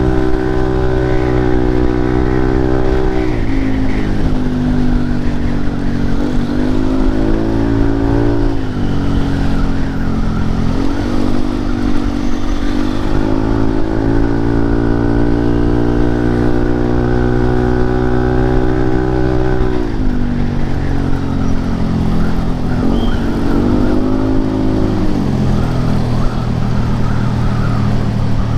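Yamaha Lexi scooter's single-cylinder four-stroke engine running through an Arrow aftermarket exhaust, its pitch rising and falling with the throttle. It holds a high steady note for several seconds in the middle and drops back at a few points.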